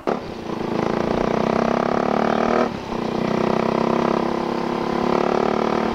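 Sport motorcycle engine running at speed on the open road, heard from a helmet-mounted camera, with a short dip in the engine note about two and a half seconds in before it picks up again.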